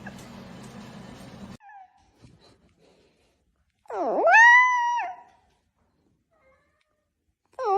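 A pet animal's drawn-out call, sliding sharply up in pitch and then held for about a second, about four seconds in. A second call like it begins near the end.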